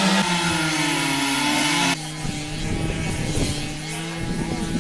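Chainsaw running at high revs while carving a wooden stump. About two seconds in, the sound cuts to a second chainsaw carving, a little quieter, with its own steady engine note.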